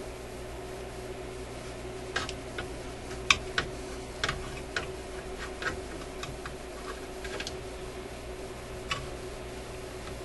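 Irregular sharp metallic clicks and taps of a hand tool working at a stubborn screw on a tube radio's metal shielding can, a dozen or so, the loudest about three seconds in, over a steady background hum.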